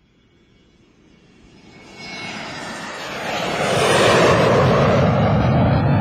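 Airplane flying past: its engine noise swells from faint to loud over about four seconds, then the sound deepens as it goes by.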